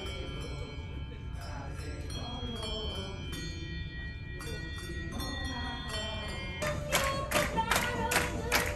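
Handbells ringing a tune, with voices singing along. About seven seconds in, a steady beat comes in at about two strikes a second.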